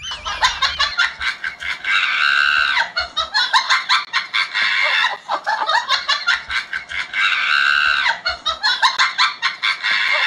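Fowl-like clucking: rapid runs of short clucks with a longer drawn-out call about two seconds in and again about seven seconds in, repeating as if looped.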